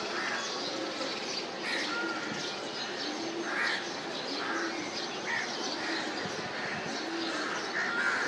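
Several birds calling outdoors: short repeated calls about every second, mixed with higher chirps and some low calls.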